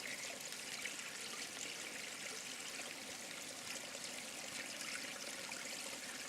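Mountain stream rushing and splashing over rocks: a steady, even wash of water noise.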